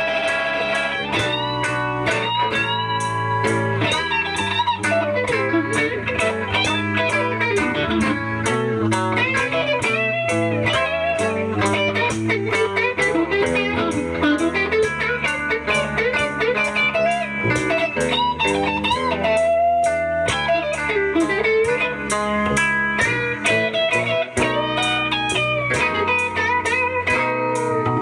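Electric blues guitar soloing with bent notes, over a walking bass line and a steady beat.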